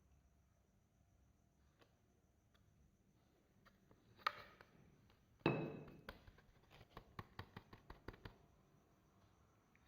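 Soft clay being mixed by hand: a single sharp tap a little before halfway, then a louder squish, followed by a quick run of about a dozen small clicks and pops as the clay is pressed and pulled.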